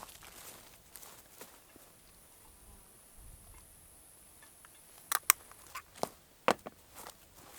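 Several sharp clicks and knocks, close together, starting about five seconds in, after a few seconds of faint scattered ticks.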